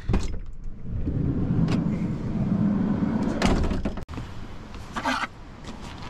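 Camper van's sliding side door rolled open, a steady rumble along its track lasting a few seconds, followed by a short clatter.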